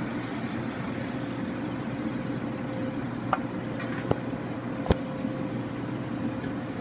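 Steady low mechanical hum of kitchen ventilation, with a faint constant tone above it. A few sharp clicks or knocks come in the second half.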